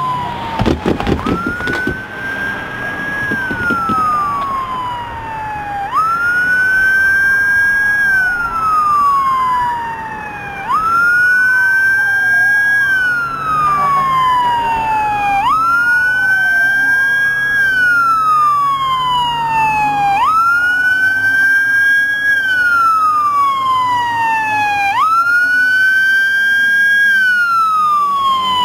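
Fire engine's siren wailing in repeated cycles, each a quick rise and a slower fall, about every four to five seconds, as the truck approaches. There is a brief low blast about a second in.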